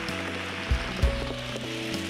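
Background music: held synthesizer-like notes over low bass notes that strike twice in the second half, with an even hiss behind them.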